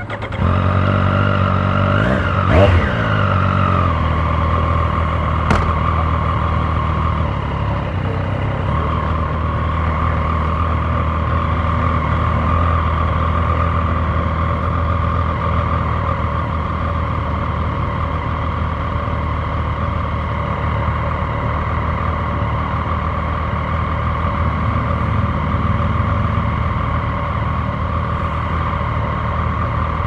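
Triumph Street Triple 765 RS's inline three-cylinder engine starting up, blipped once with a quick rise and fall in revs about two seconds in, then idling steadily. There is a single sharp click a few seconds later.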